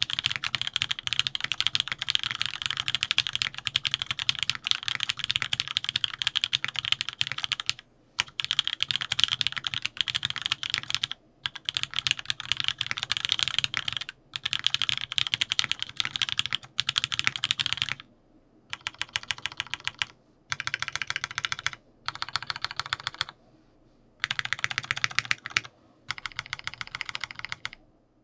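Mechanical keyboard with factory-lubed TTC Hey linear switches on a polycarbonate plate, with GMK keycaps, being typed on fast. The first several seconds are a steady stream of keystrokes, then the typing comes in bursts of a few seconds with short pauses between them, some bursts softer than others.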